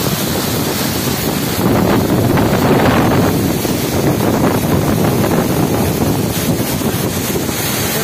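Steady rush of a waterfall cascade pouring onto the river close by, mixed with wind buffeting the microphone; it swells for a couple of seconds starting about a second and a half in.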